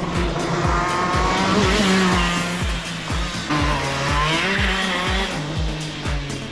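Electronic music with a steady kick drum, about two and a half beats a second, mixed with a go-kart engine revving up and falling back as it runs the circuit.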